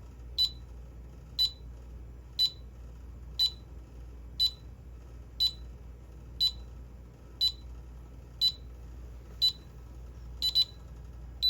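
Maclock alarm clock's alarm sounding: short high-pitched electronic beeps about once a second, changing to quick double beeps near the end.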